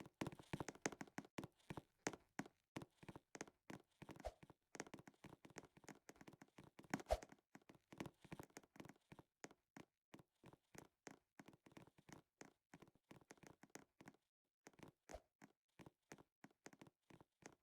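Faint, irregular taps and clicks, several a second, with one louder knock about seven seconds in.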